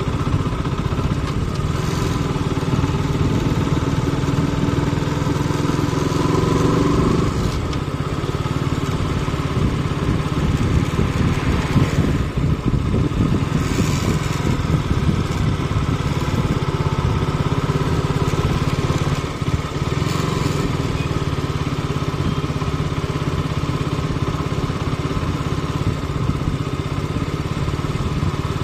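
Motorcycle engine running steadily at an even speed, with small shifts in pitch a few seconds in.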